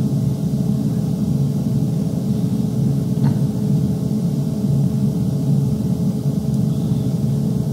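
Steady low mechanical hum with a few held tones in it, unchanging throughout, and one faint click about three seconds in.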